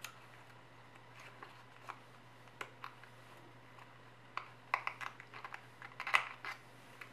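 A sheet of origami paper being folded and creased by hand: scattered short crackles and taps, clustered most thickly from about four and a half to six and a half seconds in, over a faint steady low hum.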